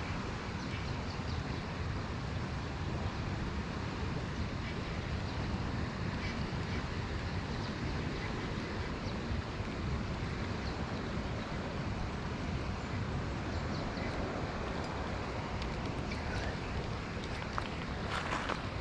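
Wind buffeting the microphone over the steady rush of the river's flowing water. A few crackles come in near the end.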